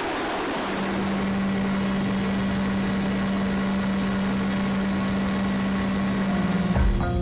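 Cabin noise of an MV-22 Osprey in flight: a steady rushing drone with an even hum that comes in about a second in. Music with mallet-like notes starts near the end.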